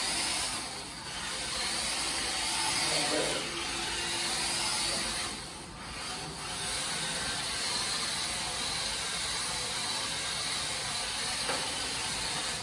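WPL D12 1:10 RC Suzuki Carry truck driving on a hard laminate floor: a steady whine from its brushed electric motor and drivetrain mixed with tyre noise, swelling and easing as it speeds up and slows, with brief dips about a second in and again around five and a half seconds.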